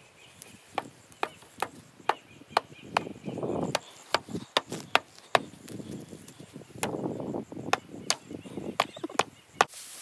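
Wooden mallet striking the wooden poles of a rice-drying rack: sharp wooden knocks in runs of several blows, about two or three a second.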